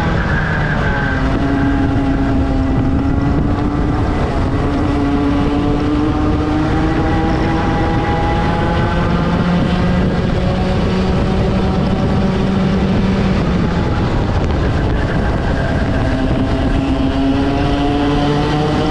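Rotax 125cc two-stroke kart engine at race speed, its pitch climbing slowly and dipping again as the kart accelerates and slows through the corners.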